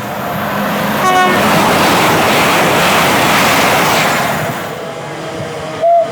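A train passing at speed with a rising and falling rush of noise, a brief horn toot about a second in, and a loud short train horn note just before the end.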